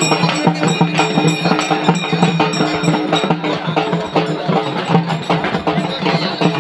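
Music with fast, dense percussion strokes over steady held tones.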